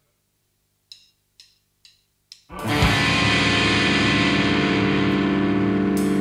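Punk rock intro: four sharp drumstick clicks count in, then a distorted electric guitar chord rings out and is held. The drums come in at the very end.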